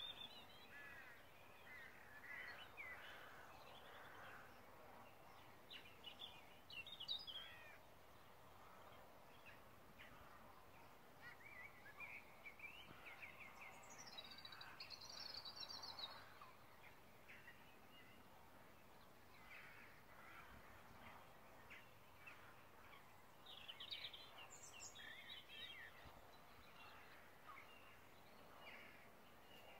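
Faint birds calling: scattered chirps and short song phrases, with a few louder bursts of calling about 7, 15 and 24 seconds in, over a low hiss of background noise.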